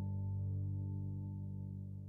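Soft ambient background music: a low sustained chord with a ringing, bowl-like tone, slowly fading.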